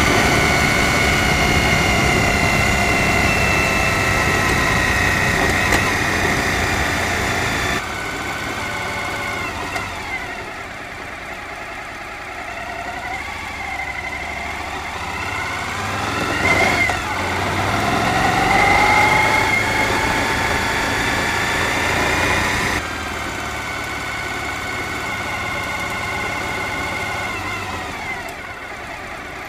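Suzuki V-Strom DL1000's V-twin engine running as the bike rides along, its pitch slowly rising and falling with the throttle. The sound changes abruptly twice, about a third and three quarters of the way through.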